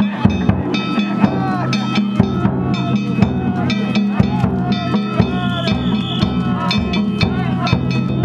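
Danjiri festival music: drums and ringing metal gongs struck in a fast, steady rhythm, with a wavering melodic line over them.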